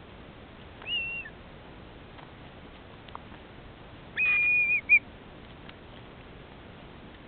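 Whistling kite calling: a short whistle that rises and drops about a second in, then a longer, louder held whistle followed by one short note near the middle.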